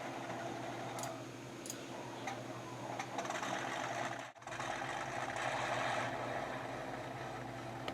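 A tank engine sound running steadily as played back through a small speaker, with a few faint ticks early on. It cuts out for a moment about four seconds in and comes back louder.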